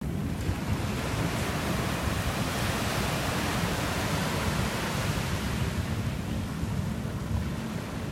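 Small waves breaking and washing up a sandy beach, the wash swelling and easing, over a steady rumble of wind on the microphone.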